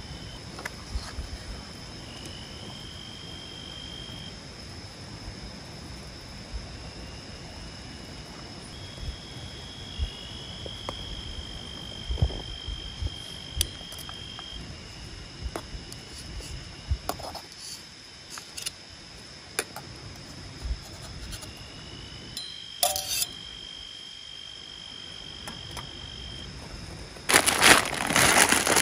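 Night insects calling in forest: one steady high-pitched trill throughout, with a lower trill that starts and stops every few seconds. Scattered small clicks, then a loud rustling, crinkling noise near the end.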